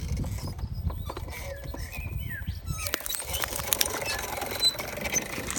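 Low rumble, then from about three seconds in a dense run of small crackles and crunches as a quad bike's tyre rolls over a stone and broken glass. A short chirp-like call rises and falls about two seconds in.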